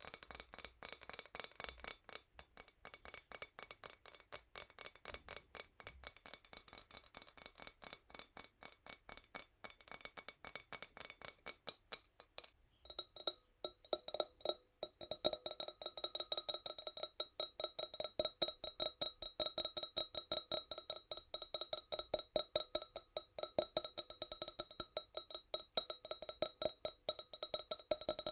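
Fingernails tapping fast and gently on a tiny wine glass, a dense run of light clicks. About 13 s in, the tapping changes and the glass starts to ring with clear, sustained tones under the taps.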